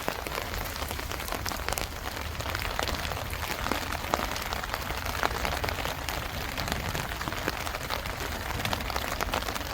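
Steady rain falling on a tent: an even hiss full of many small taps from individual drops.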